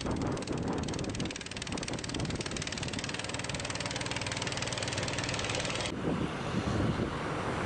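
An engine running steadily under a wash of noise. About six seconds in, the sound cuts abruptly to gusty wind buffeting the microphone.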